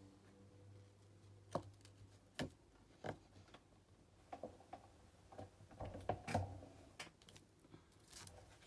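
Scattered light taps and clicks of hand-stamping at a craft table, as a stamp is inked and pressed onto paper. A few single taps come about a second apart, with a busier run of small knocks around the middle.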